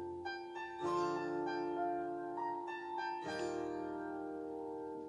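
Instrumental background music of held chords, the chord changing about a second in and again a little past three seconds.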